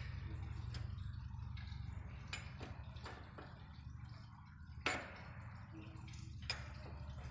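Scattered light metallic clicks and taps from the hook rods and fittings of a chain link fence weaving machine being adjusted by hand, one sharper click about five seconds in, over a steady low hum.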